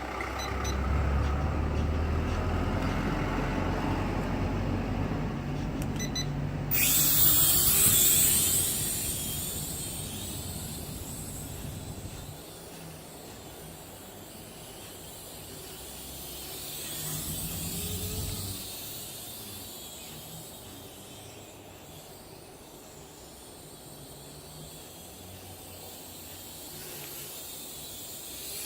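Wind buffeting the microphone: a heavy low rumble that gives way, about seven seconds in, to a sudden loud hiss that fades over a few seconds, then gentler gusts that swell and drop.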